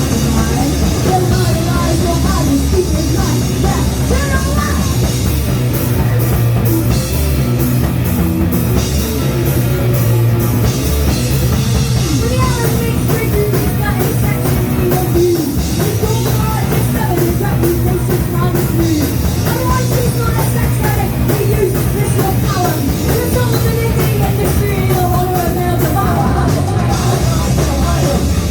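Punk rock band playing a song live and loud, with a drum kit driving it. Fast, steady cymbal hits run through most of the passage.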